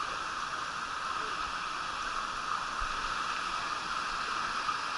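Steady rush of flowing water running down a water slide into its pool, an even hiss with no breaks.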